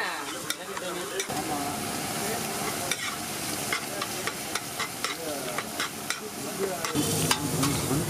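A metal spatula scraping and clicking against a flat iron tawa as eggs and fish are chopped and stirred, over a steady frying sizzle.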